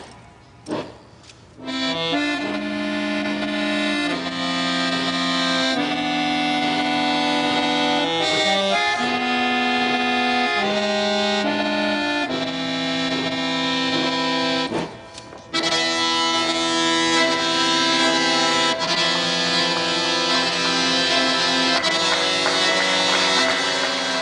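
Solo chromatic button accordion playing sustained chords that change every second or two. Two short, sharp chords come about a second in, before the playing settles, and there is a brief pause about fifteen seconds in.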